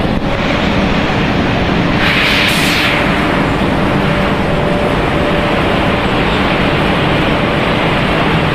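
Machinery of a running twin-screw extruder corn ring pellet production line: a loud, steady mechanical din with a faint steady tone in it, and a brief louder hiss about two seconds in.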